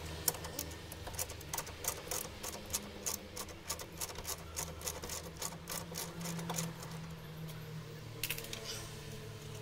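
A run of sharp, irregular clicks, several a second, from hands working loose the plastic wiring connector and fittings of a car's old horn. The clicks pause in the middle and come back near the end, over a steady low hum.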